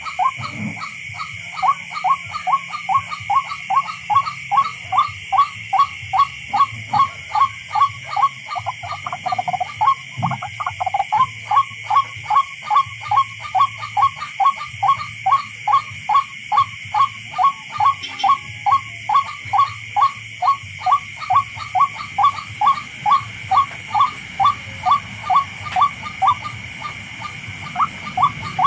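Tikling (rail) calling: a long run of short repeated notes, about two or three a second, over a steady high-pitched hum.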